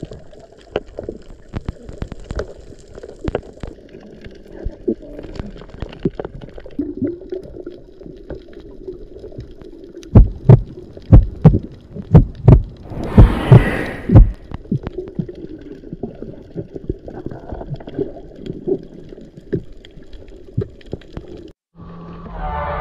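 Underwater sound picked up by a submerged camera over a coral reef: scattered sharp clicks and crackles over a low murmur, with a run of heavy low thumps and a brief rush of bubbles between about ten and fourteen seconds in. Near the end it cuts off and music begins.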